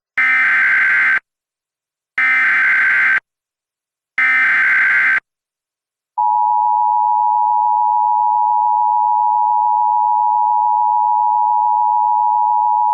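Emergency Alert System tones: the SAME digital header encoding a Severe Thunderstorm Warning, sent as three one-second data transmissions about a second apart. About six seconds in, the steady two-tone EAS attention signal begins.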